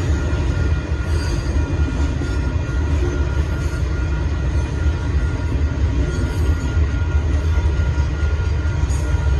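Union Pacific freight train of boxcars rolling past at a grade crossing: a steady heavy rumble of wheels on rail, with a thin steady high tone over it.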